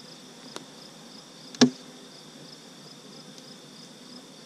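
Insects chirping in a steady high rhythm, a few pulses a second, with a light click about half a second in and a single sharp knock about a second and a half in as the wooden hive is worked open with a hive tool.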